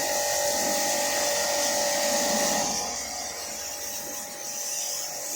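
A motor-driven machine running with a steady whine and a high hiss. About two and a half seconds in, one of its tones drops out and it settles a little quieter.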